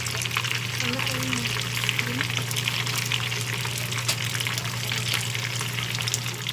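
Chicken pieces frying in plenty of hot oil, a steady dense crackle and sizzle. A steady low hum runs underneath.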